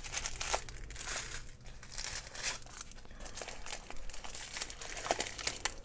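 Small clear plastic bags of diamond-painting drills crinkling as they are handled, an irregular run of fine crackles.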